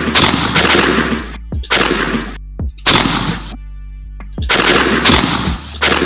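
Several shotgun blasts, each sounding for about a second, over background music with a steady bass and beat.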